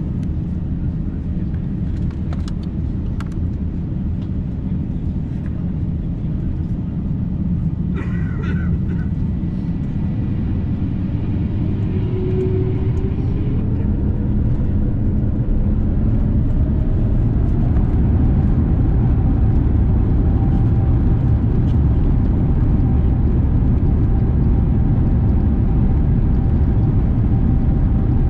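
Cabin sound of an Airbus A350-900's Rolls-Royce Trent XWB engines spooling up for takeoff: a deep rumble that grows steadily louder, with an engine whine rising in pitch through the middle and then holding steady at takeoff thrust. A short high-pitched sound comes about eight seconds in.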